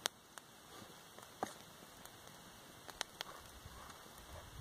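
Small, smoky campfire of damp wood crackling: a handful of sharp, irregular pops over a faint hiss, the loudest right at the start.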